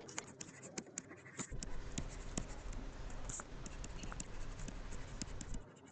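Stylus writing on a tablet PC screen: a run of light taps and scratches as words are handwritten.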